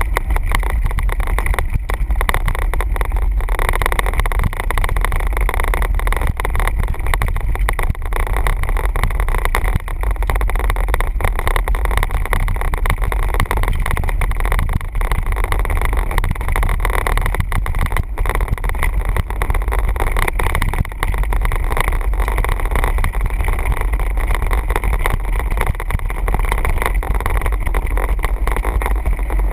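Steady low wind rumble on the microphone and tyre noise as a 29er mountain bike rolls fast down a loose gravel trail, with continual small rattles from the bike over the rough surface.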